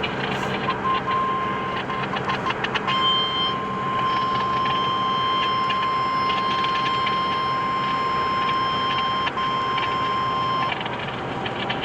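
Weather radio warning alarm tone: one steady high beep held for about eight seconds, starting about three seconds in, over road noise inside a moving car. It is the alert that comes before a severe thunderstorm warning broadcast.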